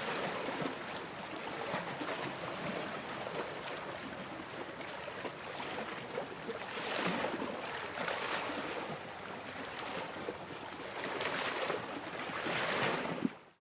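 Small waves washing and splashing against large shoreline rocks, a steady wash of water with several surges as waves break. It cuts off suddenly near the end.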